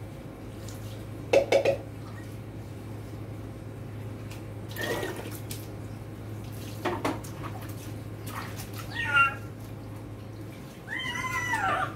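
Water sloshing and splashing as a plastic dipper scoops it, with a couple of loud splashes about a second and a half in, and a kitten meowing near the end. A steady low hum runs underneath.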